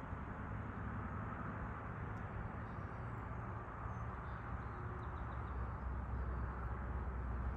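Steady low outdoor background rumble across open farmland, with a few faint, high bird chirps about halfway through.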